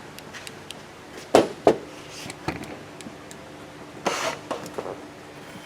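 Hands working a plastic hose and quick-connect fitting in an engine bay: two sharp knocks about a second and a half in, a few small clicks, then a short scrape of plastic about four seconds in.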